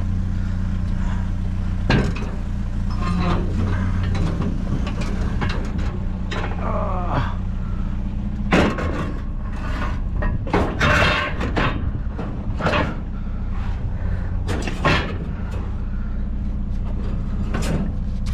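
A vehicle engine idling steadily, with metal knocks and thumps several times as a heavy piece of a weight bench set is lifted and loaded.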